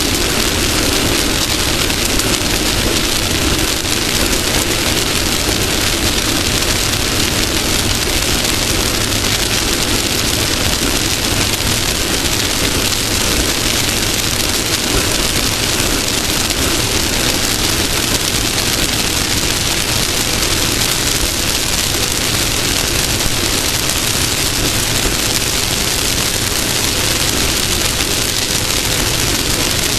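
Off-road race car running at speed: a steady, loud wash of engine, wind and dirt noise with no let-up.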